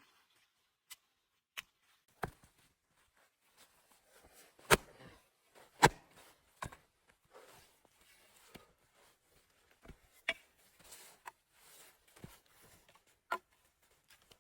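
A series of irregular sharp knocks and snaps, the loudest two about five and six seconds in, with soft rustling between them.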